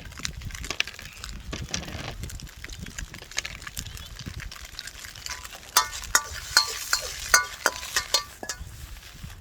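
Metal spatula stirring and scraping rice in a Chinese wok, then striking the rim in a run of ringing metal clanks, about two a second, through the second half.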